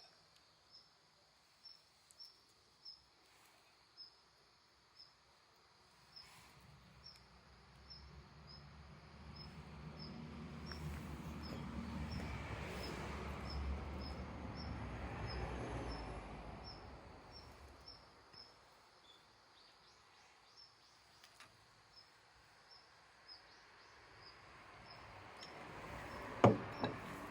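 Quiet outdoor ambience: an insect chirps steadily at a high pitch, about one and a half times a second, with scattered faint clicks. A low rumbling noise swells up and dies away over the middle of the stretch.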